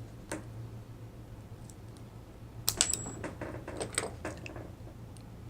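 Small sharp metal clicks and scrapes of a tool prying the stiff retaining clip off a lock's plug during disassembly. There is a single click near the start and a dense cluster of clicks about halfway through with a brief high metallic ring.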